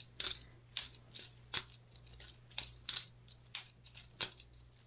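Boker Plus balisong butterfly knife being flipped by hand: its handles and blade clack against each other in a string of sharp clicks at an uneven pace, about two a second.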